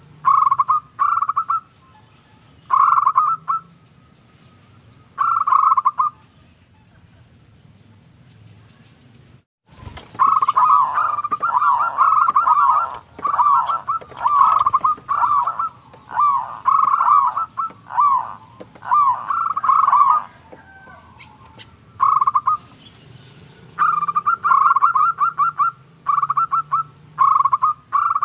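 Zebra dove (perkutut) cooing: short phrases of rapid, pulsed coos, repeated every second or so. There is a brief break about a third of the way in, then a denser run of calls.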